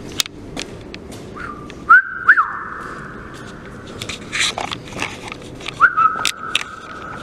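A person whistling two long held notes: the first starts about two seconds in with a couple of quick upward slides, and the second begins near the end. Scattered short clicks and knocks sound between them.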